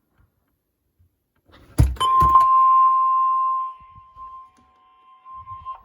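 A couple of loud knocks, then the NOAA Weather Radio warning alarm: a steady single tone of about 1 kHz. The tone is loud for a couple of seconds, then carries on much fainter until it cuts off just before the test announcement.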